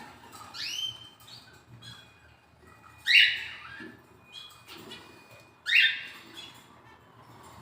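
Canary chicks giving short, harsh begging calls while being hand-fed: three loud calls spaced two to three seconds apart, with fainter chirps between.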